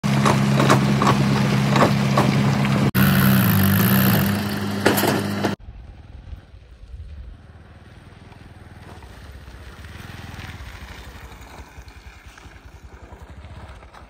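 A loud opening of several steady held tones that shift pitch about three seconds in, cutting off suddenly after about five and a half seconds; then a motorcycle engine running at low revs as it rides along a dirt track, growing louder and then fading.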